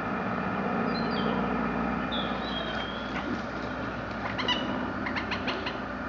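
Steady engine-like hum of a radio-controlled model work boat under way, with birds chirping over it a few times and a short run of sharp ticks near the end.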